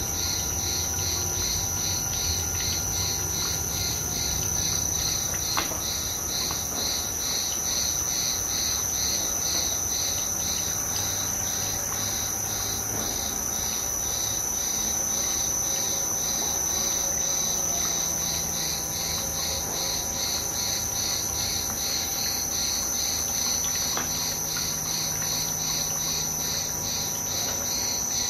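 Loud, steady insect chirping, a continuous high trill with a regular pulse, over the low hum of a screw oil press's electric motor and gear reducer running while it presses safflower seed.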